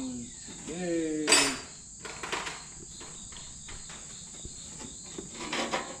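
Hand tools clanking and clinking as wrenches are picked through and tried on bolts. One loud metallic clank comes about a second and a half in, with lighter rattles later, over a steady high chirring of insects. A brief hum from a person's voice comes near the start.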